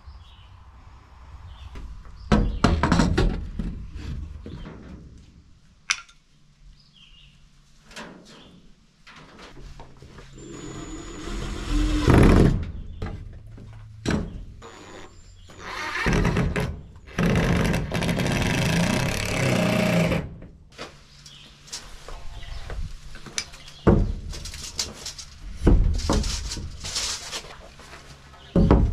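Wood being worked by hand in a plywood doorway opening: boards and a metal level knocked, scraped and set into place, with several sharp knocks. Past the middle comes a few seconds of steady, dense noise.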